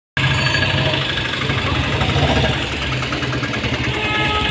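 Piaggio Ape three-wheeler's engine running steadily, starting abruptly about a quarter second in.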